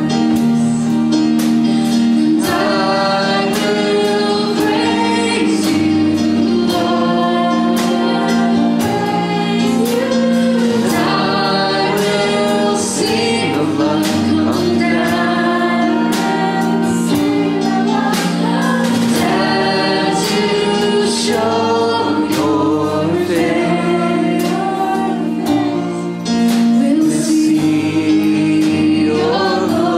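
Live band with acoustic guitar and drums playing a song, with voices singing the melody over sustained chords and a steady beat.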